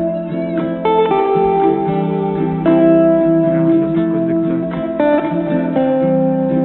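Background music: a plucked guitar playing a melody of held notes that change every second or so.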